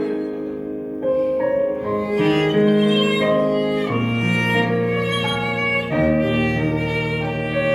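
A small amateur ensemble playing live, violins carrying the melody in held notes over a lower accompaniment; a sustained low bass note comes in about four seconds in.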